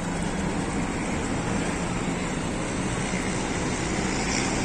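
Steady engine and road noise of a moving vehicle: an even rumble with a low hum that holds unchanged throughout.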